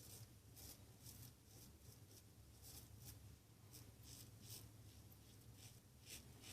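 Merkur 39C slant safety razor scraping through stubble in short, faint strokes, about two to three a second in an uneven rhythm.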